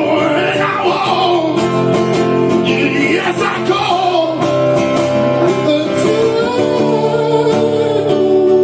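Live song: strummed acoustic guitar chords under a wordless melodic vocal line that bends up and down, settling into a long held note near the end.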